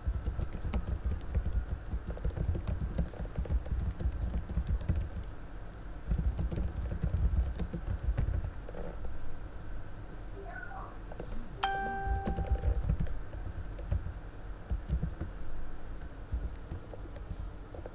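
Irregular clicking and dull low thumps, with one brief pitched tone about twelve seconds in.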